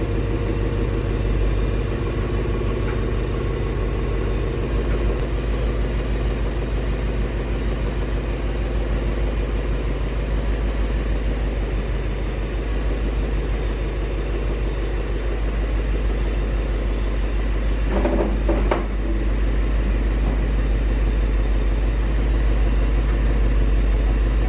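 2023 Ford Mustang GT's 5.0-litre V8 running at idle with a steady low rumble as the car creeps forward at walking pace.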